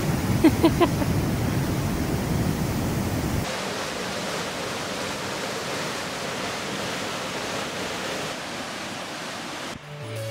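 Rushing water of a mountain waterfall cascading over rocks, a steady even rush. About three and a half seconds in it changes to a thinner, hissier rush with less rumble, as the view switches to a closer cascade.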